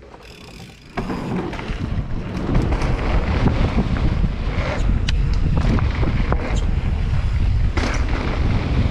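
Wind rushing over the camera's microphone during a fast mountain-bike descent, with scattered clicks and knocks from the bike. It starts suddenly about a second in and stays loud.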